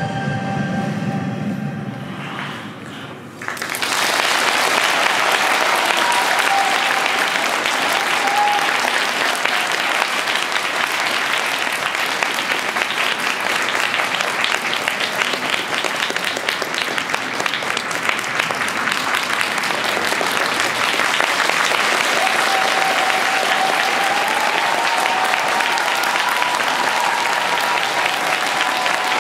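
The last of the skating music fades out, and about three and a half seconds in an ice-rink audience breaks into steady applause for the finished free skate.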